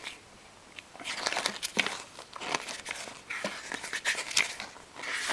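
Paper brochure pages being flipped and handled: an irregular run of rustles and crinkles starting about a second in.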